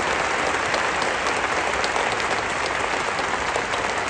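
Large stadium crowd of supporters applauding: a dense, steady clatter of clapping.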